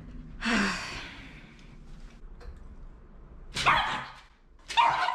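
Jack Russell-type terrier mix barking three times in short, harsh bursts: defensive, aggressive barking from a fearful dog as a grooming brush is held toward him.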